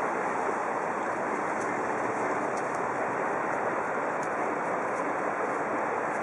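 Jet of water from a hose laid over a sandbag flood barrier, pouring steadily into floodwater with a continuous splashing.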